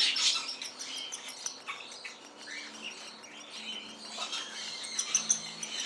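Baby cockatiel chick giving its feeding response while being hand-fed: a quick run of short, high, scratchy begging chirps. This is the sign of a good, strong feeding response in a hungry chick.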